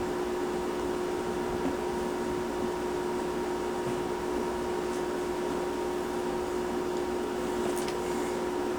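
A steady background hum with a constant tone over a faint hiss.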